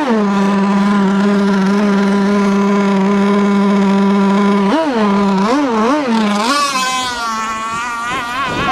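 Radio-controlled sport hydro boat's engine running at a steady pitch, then revved up and down a few times about five seconds in. After that a higher, wavering engine note takes over.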